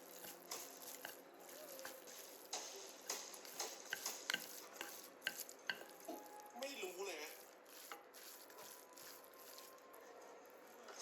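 A utensil stirring in a cooking vessel, with scattered light clinks and taps that thin out after about six seconds.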